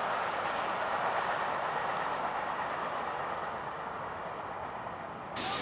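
Train on the main line running past and drawing away, a steady rumbling rush of rail noise that slowly fades. Near the end it cuts suddenly to a loud hiss.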